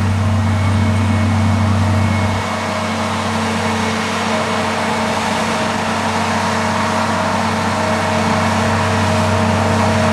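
Combine harvester running steadily while harvesting corn: a low engine hum with a few steady tones over the even noise of its machinery, the lowest hum easing slightly about two seconds in.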